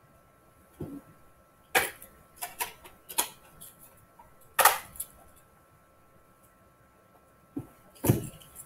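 Scattered irregular clicks and knocks, about eight of them, the loudest a little past halfway and near the end, over a faint steady high tone.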